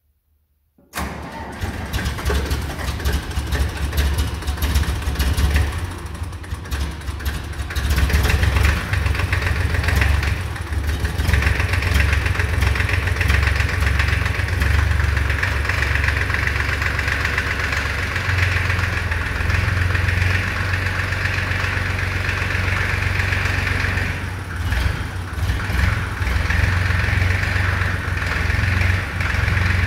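Fendt Farmer 2 tractor's diesel engine running at idle on a cold start after long glow-plug preheating. The sound cuts in abruptly about a second in and stays loud and steady.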